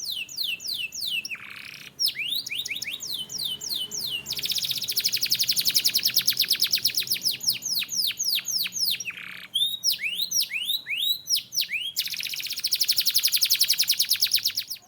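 Canary singing: a run of quick falling whistles, then a long, fast trill of evenly repeated notes, a few swooping notes, and another fast trill near the end.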